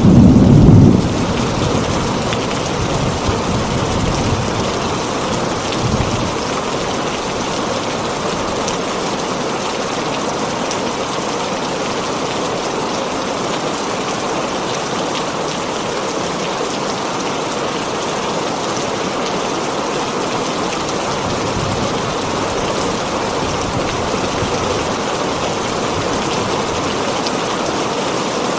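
Heavy rain pattering steadily on a tin roof. A loud low rumble of thunder comes in the first second, then dies away through weaker rumbles a few seconds in.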